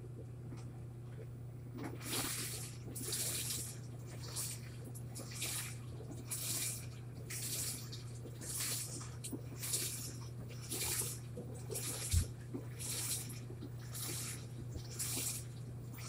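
Tumble dryer running: a steady motor hum under the bedding tumbling in the drum, which gives a soft swish about once a second from about two seconds in. One dull thump near the middle.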